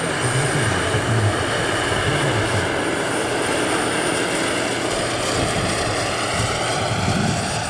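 The small gas-turbine engine (PAL Taurus, 12 kW) of a large scale model Mi-24 helicopter running steadily: a continuous high whine over a broad, even rush.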